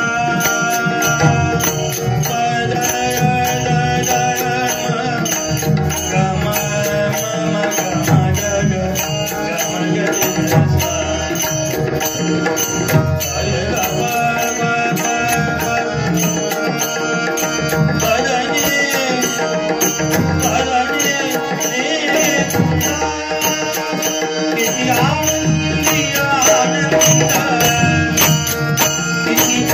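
Male voice singing a devotional Marathi bhajan over a tabla-type hand drum, with a rapid, even metallic jingling beat behind it.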